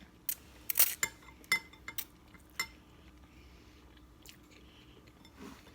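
Stainless steel forks clinking and scraping against glass bowls while noodles are eaten: about six sharp clinks in the first three seconds, the loudest about a second in, then only faint eating sounds.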